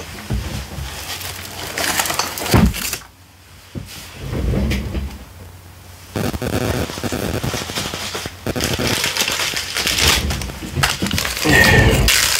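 Thin plastic bags crinkling and rustling while a cardboard box is shifted about, with a few knocks a couple of seconds in; near the end a zipper-seal plastic bag rustles as it is handled and opened.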